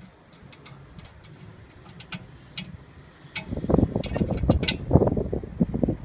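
Small metal clicks from a Schrader valve core being screwed back into a refrigerant service port with a core tool. More than halfway in they become a louder, rapid run of clicking and rattling.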